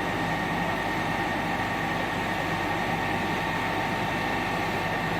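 An engine running steadily, a constant hum with several fixed tones under an even hiss.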